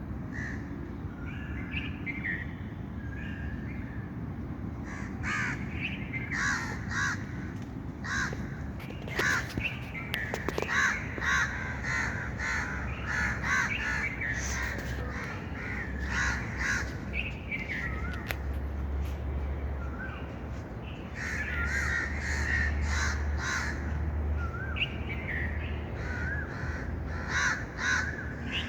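Birds calling: many short, repeated calls overlap, thickest through the middle and near the end, over a steady low background hum.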